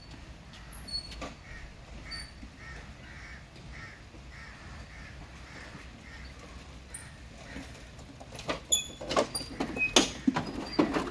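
A bird calling over and over, short calls about two or three a second, then a run of sharp knocks and clatters in the last few seconds.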